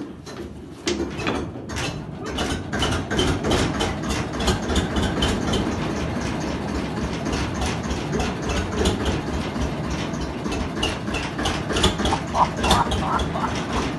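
Gmeinder field-railway locomotive's two-cylinder engine being hand-cranked, with a click at the start. It catches about a second in and then keeps running with a fast, even beat of firing strokes.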